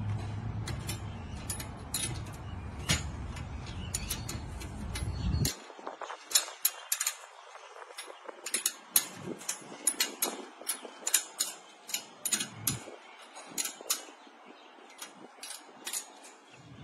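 Irregular sharp metal clicks and clinks of hand tools working on the steel base and indexing assembly of a band saw blade sharpener as it is tightened and adjusted. For the first five seconds a steady low rumble sits under the clicks, then cuts off suddenly.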